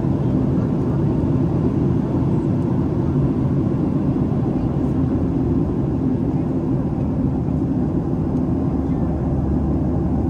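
Steady jet airliner cabin noise at cruise from a Boeing 737 window seat: an even low rumble of engines and airflow that does not change.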